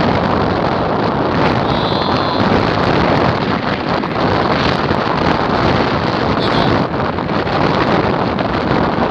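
Strong wind blowing across a phone's microphone: a loud, steady rush of noise.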